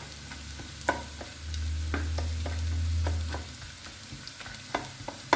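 Diced carrot, onion, garlic and walnuts sizzling in olive oil in a frying pan, stirred with a spatula that clicks against the pan several times. A low hum swells for about two seconds in the middle.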